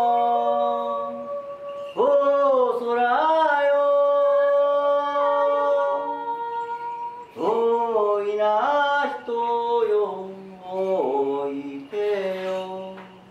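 Unaccompanied singing voice holding long, drawn-out notes that slide between pitches, in a few phrases with short breaks between them.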